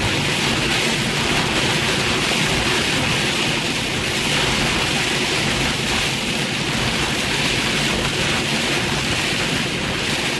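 Heavy wind-driven rain from a severe thunderstorm beating on a car's windshield and body, heard from inside the car as a steady, loud hiss.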